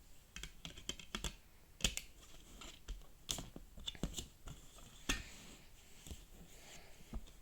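Packaging being handled and opened: irregular sharp clicks, taps and short rustles, a dozen or so spread unevenly.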